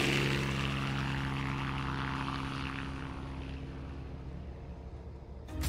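Aircraft passing overhead, a steady engine hum that slowly fades as it moves away.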